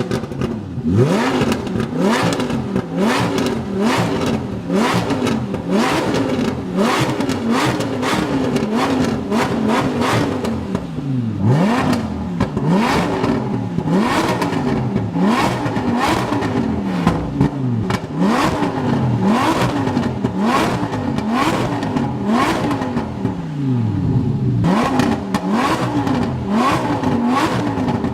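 Lamborghini Huracán's V10 engine revved over and over in quick throttle blips, its pitch rising and falling about once a second. The modified exhaust crackles and pops between the revs.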